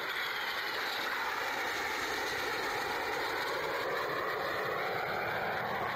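BAE Hawk jets of the Red Arrows flying past in formation: a steady rushing jet noise whose tone sweeps slowly down and back up as they pass.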